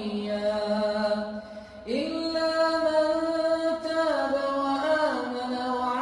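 Melodic Quran recitation: one voice drawing out long held notes, pausing briefly about a second and a half in, then sliding up into a new long note.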